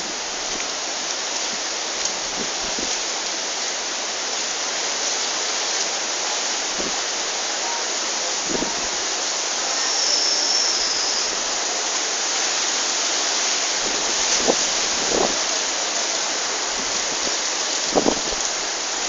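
Strong wind and big waves at a harbour: a steady rushing noise, with a few brief knocks scattered through it.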